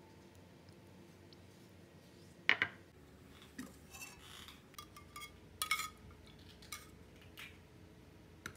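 Metal spoon clinking against a ceramic bowl in a series of light, irregular clinks, loudest about two and a half seconds in and again a little past halfway.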